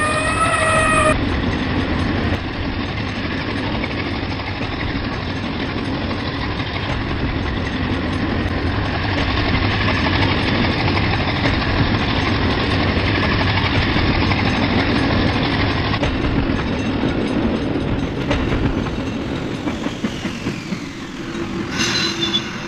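A train running on rails with a steady rumble, opened by a brief pitched horn blast in the first second; the rumble eases off after about eighteen seconds and a short pitched sound comes near the end.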